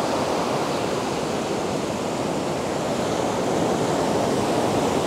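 Ocean surf breaking and washing up a sandy beach: a steady rush of water that swells a little toward the end.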